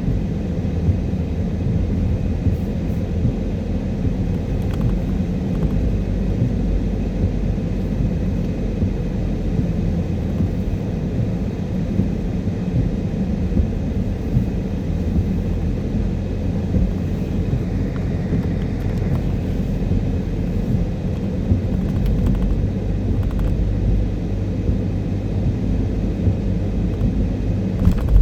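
Car heard from inside the cabin, a steady low rumble of engine and road noise.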